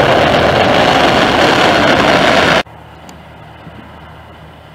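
Loud, steady roar of a Cargolux Boeing 747 freighter's jet engines on the runway, cut off abruptly about two and a half seconds in. After the cut comes a much quieter, steady jet engine noise from a twin-engine regional jet lifting off.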